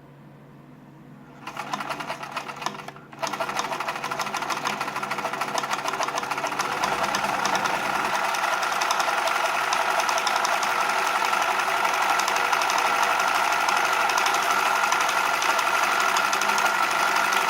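Vintage free-arm sewing machine stitching through four layers of 8 oz canvas with heavy polyester thread. It starts about a second and a half in, stops briefly, then runs on steadily, growing louder over the next few seconds.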